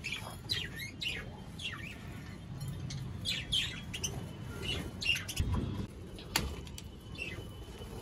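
Budgerigars chirping and chattering, many short scattered calls overlapping, with one sharp click a little past six seconds in.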